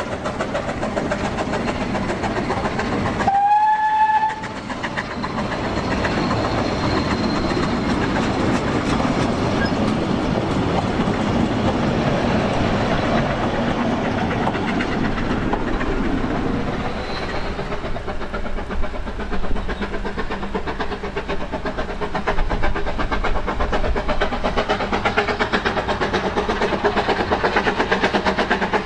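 Narrow-gauge steam train's coaches rumbling and clattering past on the rails, with one short steam-whistle blast lasting about a second, a few seconds in.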